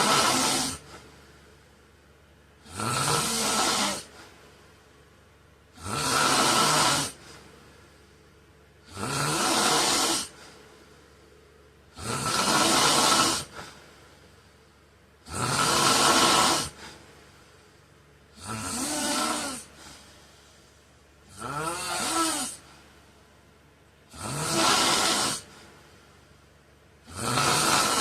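A sleeping man snoring in a steady rhythm: one loud snore about every three seconds, each lasting about a second and rising in pitch as it starts, with quiet breathing in between.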